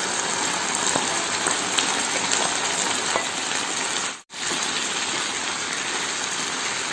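Steady sizzling of onions, capsicum and sauce frying in a non-stick pan as pre-fried chicken pieces are tipped in. The sizzle drops out for a moment about four seconds in.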